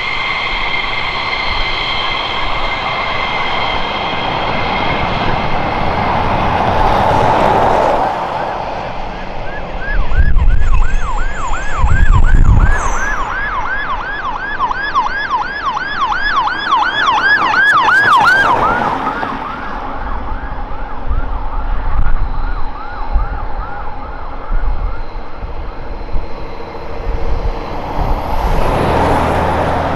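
UK ambulance siren on a fast yelp, about three to four sweeps a second, sounding for about nine seconds in the middle and then cutting off. Road traffic passes close by throughout, loudest as a heavy vehicle goes by while the siren starts. A steady high whine fills the first several seconds.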